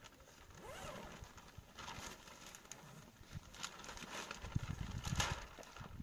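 Faint crinkles of plastic sheeting being handled, then irregular low thumps starting about two-thirds of the way in.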